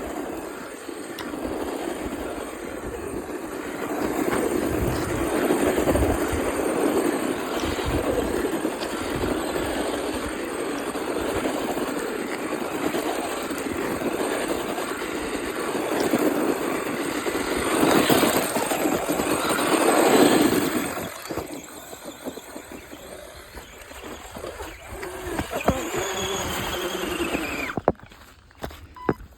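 RC car driving hard on dirt: its motor and gears whining while the wheels spin and scrabble. It is loudest about eighteen to twenty seconds in, then drops off about twenty-one seconds in.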